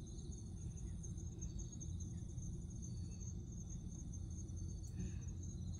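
Insects trilling steadily in several high, even tones over a low steady rumble.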